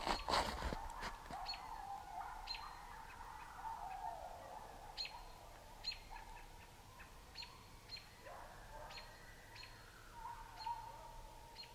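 Long drawn-out wavering calls with slow rising and falling glides, howl-like, over short high chirps that repeat about once a second; a brief loud clatter at the very start.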